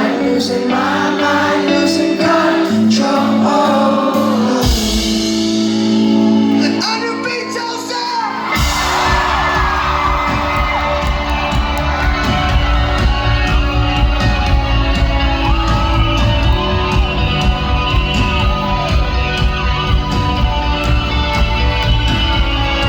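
Rock band playing live with a singer: sung lines over held chords, a thinner sustained passage, then the full band with drums and guitars comes crashing back in about nine seconds in and plays on loud.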